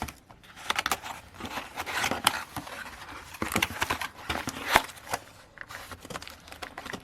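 Packaging being rummaged through by hand: rustling and crinkling with many sharp clicks and taps, the loudest tap nearly five seconds in, quieter toward the end.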